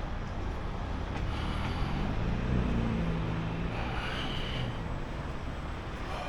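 Road traffic: a motor vehicle's engine hum swells in the middle and fades, over a steady low rumble of traffic.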